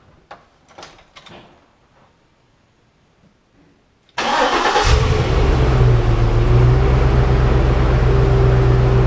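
A few faint clicks, then about four seconds in the 2006 Chevrolet Trailblazer SS's 6.0-litre LS2 V8 starts and runs steadily, started on its newly installed ignition switch.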